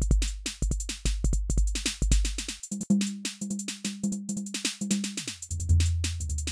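Programmed drum-machine pattern: a deep 606-style kick under a steady run of hi-hat ticks. About two and a half seconds in, the kick gives way to a pitched tumba (conga) percussion one-shot, and that drum tone slides down in pitch just after five seconds.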